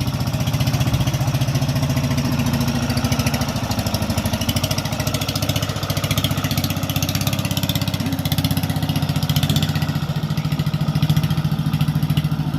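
An engine idling steadily at close range, with an even, rapid pulsing.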